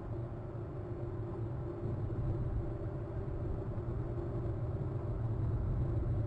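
Steady low mechanical hum with a constant pitch and no breaks.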